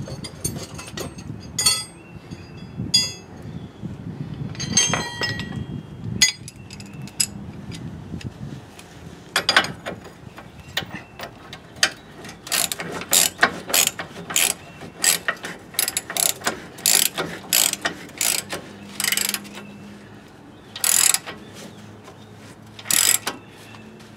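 Hand socket ratchet clicking in repeated runs of strokes as the lower mounting bolt of a rear shock absorber is run down. A few metal clinks of tools come first.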